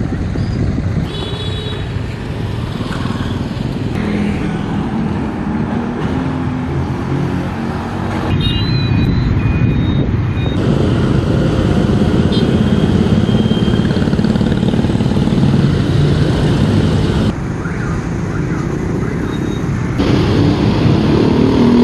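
Steady, loud rumble of vehicle engines with a few short, high beeps like horns. The background changes abruptly several times.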